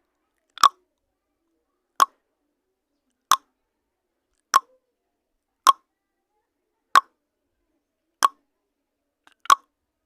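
Countdown timer sound effect: a short tick repeating evenly about every second and a quarter, eight times, with silence between.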